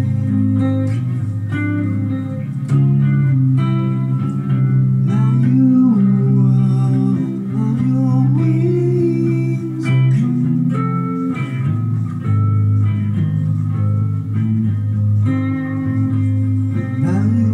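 Electric guitar played steadily, a slow line of held notes with several bent notes gliding in pitch over sustained low notes.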